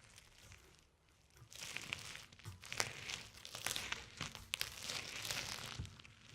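A loose car tire moving over a concrete floor: a gritty crunching and crackling with scattered small clicks as grit is pressed under the tread. It starts about a second and a half in and dies away near the end.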